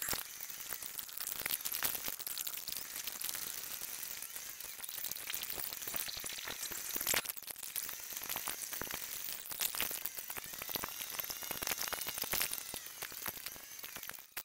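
Car interior sound from a dashboard camera, played back many times faster than it was recorded, so that the road and engine noise becomes a crackling, sizzling hiss full of quick clicks. A few brief warbling squeaks come through in the second half.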